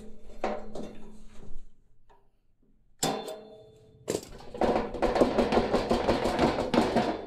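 Sheet-metal furnace blower housing being handled and worked on: knocks and clicks, a sharp metallic clank that rings on about three seconds in, then a fast run of rattling clatter with a metallic ring.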